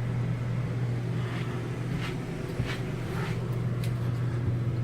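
RV rooftop air conditioner running with a steady low hum and fan air noise while blowing warm air of about 92 degrees: the unit is malfunctioning and not cooling.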